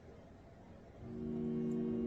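Anime soundtrack music: quiet at first, then a held chord of strings enters about a second in and swells.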